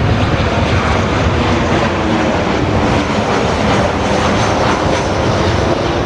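Boeing 737 airliner's twin jet engines running steadily as it flies low on landing approach, gear down.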